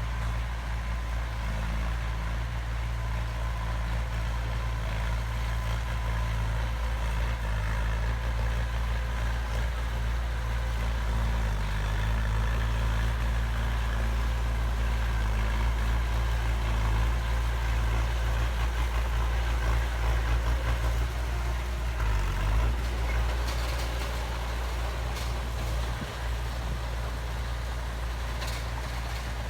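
Heavy diesel engine of an earthmoving machine (bulldozer or dump truck) running steadily with a deep low rumble. A few faint clicks come near the end.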